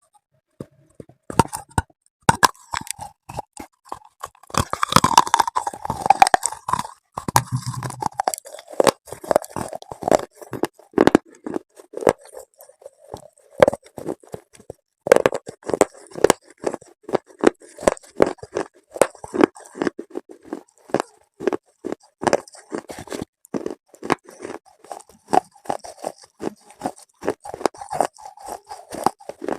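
Close-miked biting and crunchy chewing of something hard and brittle: a run of sharp, irregular crunches, many to the second, with no pause longer than a moment.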